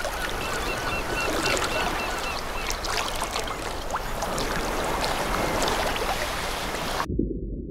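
Water splashing and lapping in a shallow pool, a steady hiss with scattered small splashes and clicks. About a second in, a bird gives a quick series of short chirps for about two seconds. Near the end the sound turns abruptly duller.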